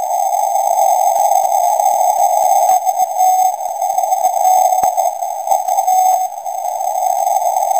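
Shortwave receiver in CW mode on the 8 MHz marine band: a steady hiss of band noise squeezed into a narrow pitch range by the receiver's filter. A faint Morse tone from a Skanti TRP-1 'Marinetta' emergency transmitter breaks through a few times as short dashes.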